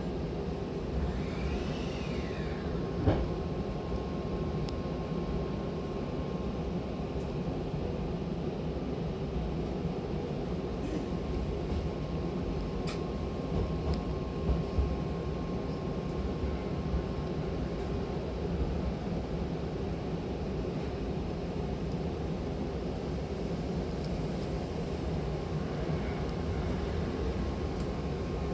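Hankyu electric train running between stations, heard from inside the passenger car: a steady rumble of wheels on the track. A brief whine rises and falls a second or two in, a single knock sounds about three seconds in, and a faint steady tone runs through most of it.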